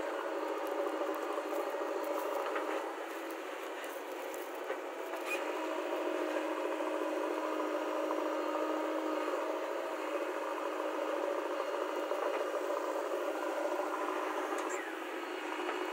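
JCB 3DX backhoe loader's diesel engine running steadily under load as the backhoe digs and dumps soil, with a few faint clicks in the first few seconds.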